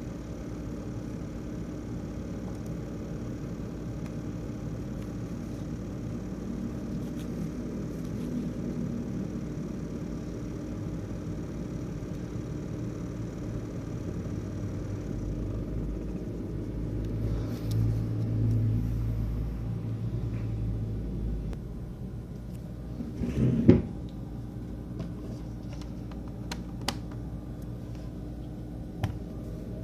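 ASUS X543UA laptop's CPU fan running with a steady buzzing hum, the rattle that the owner blames on a faulty fan. It swells louder for a few seconds past the middle; a single knock comes about two thirds of the way in, followed by a few light clicks.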